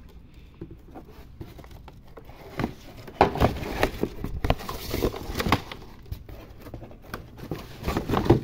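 Cardboard box flaps and paper packing rustling and scraping as a new car AC compressor is handled inside its box, with many short knocks and crinkles, busier from about two and a half seconds in.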